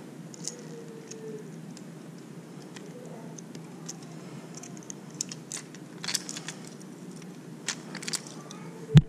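Light clicks and jingles of a Megabass I-Slide 185 swimbait being handled, its treble hooks and hardware clinking, busier in the second half, with a single dull knock near the end.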